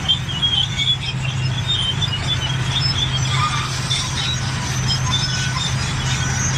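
Large crawler bulldozer at work: the diesel engine runs steadily while the steel tracks give off many short, high-pitched squeals.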